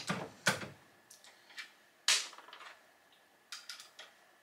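Brass rifle cases clicking and tapping against the metal of a single-stage reloading press as a case is set up in the shell holder, with a sharp click about two seconds in and a few lighter ticks near the end.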